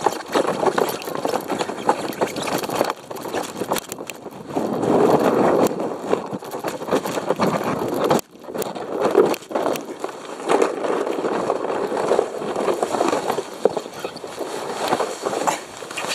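Sledge sliding down a slope of thin snow over grass: a continuous rough scraping rumble full of small knocks, broken by a brief drop about eight seconds in.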